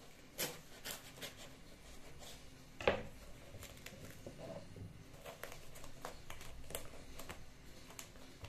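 Knife slitting open a shipping package, with scattered scraping and clicking and rustling packaging; the sharpest click comes about three seconds in.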